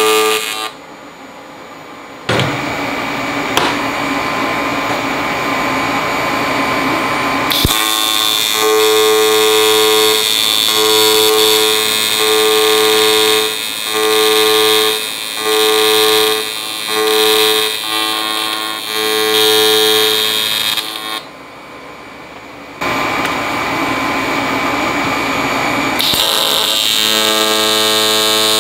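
AC TIG welding arc on aluminium: a steady electric buzz with a high hiss. The buzz stops briefly twice, and through the middle stretch it swells and dips about once a second.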